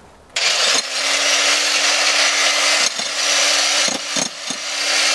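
Corded electric jackhammer starts about a third of a second in and runs steadily, its chisel hammering on a plastic children's drawing board, with a steady motor hum under the hammering noise and several brief dips in level.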